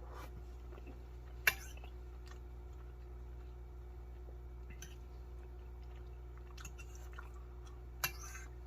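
A person chewing a mouthful of spicy cheese ramen noodles, with a sharp click about a second and a half in and another near the end.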